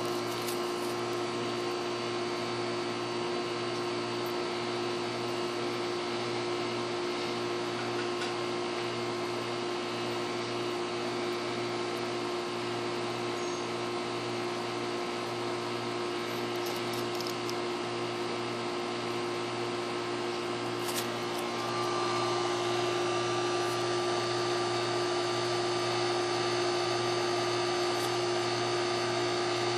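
Steady mechanical hum with a few constant tones running through it, stepping up a little in loudness about two-thirds of the way through, with a few faint clicks.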